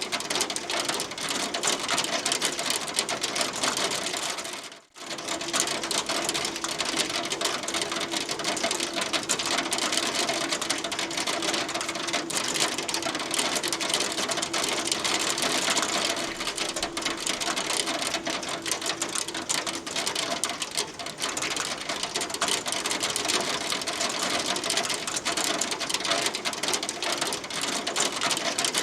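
Hail falling steadily, a dense, continuous clatter of hailstones striking, with a brief break about five seconds in.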